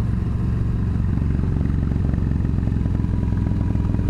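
Yamaha V Star 1300's V-twin engine running steadily at road speed, with an even low pulse, as the motorcycle rides downhill.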